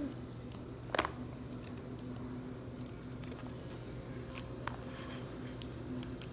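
Light clicks and taps from a handheld recording device being handled close to the microphone, with one sharper click about a second in, over a faint steady low hum.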